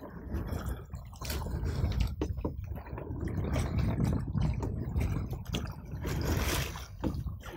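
Water lapping and splashing against a raft being paddled across a lake: irregular small splashes over a low, uneven rumble.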